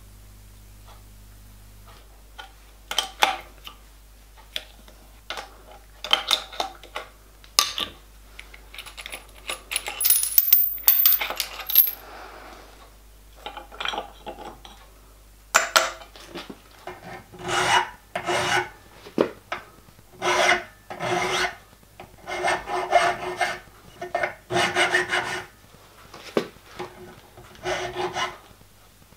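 Scattered clicks and knocks of metal parts being handled, then, from about halfway, a hand file being stroked over an aluminium workpiece held in a bench vice, roughly one stroke a second.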